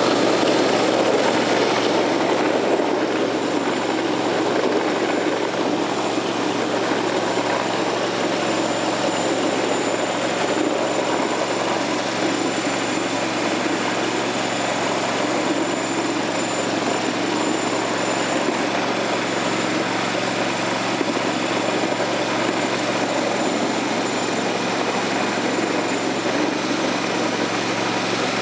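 Ride-on miniature railway locomotive running steadily along snowy track, a continuous even motor and running noise with no change in pace.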